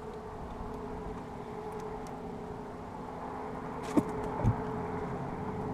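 Two sharp knocks about half a second apart as a plastic cooler lid is opened on the boat, over a steady low hum.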